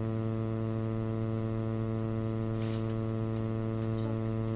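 Steady electrical mains hum with a ladder of overtones, with one faint brief rustle a little past halfway through.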